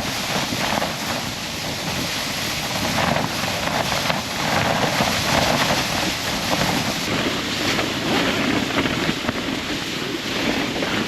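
Strong, gusting blizzard wind buffeting the microphone, a continuous rushing noise that swells and eases.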